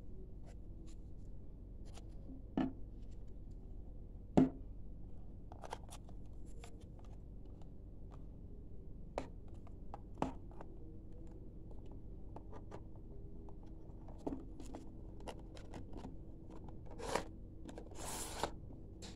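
Handling of a smartphone's cardboard box and paper leaflets on a wooden table: scattered light taps, clicks and knocks, the sharpest about four and a half seconds in, then a longer rustling scrape near the end as the box is moved.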